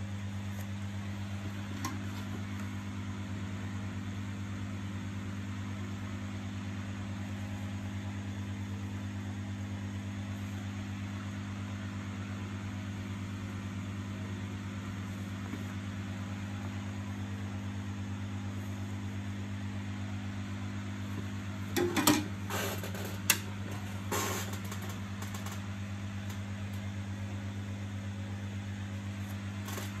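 Steady low hum, with a short cluster of clicks and rattles a little past two-thirds through as the vacuum cleaner's power-cord plug is handled.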